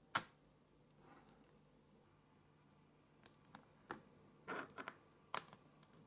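Magnet balls snapping together: one sharp click as two slabs of balls meet, then a run of smaller clicks and short rattles, with another sharp snap about five seconds in.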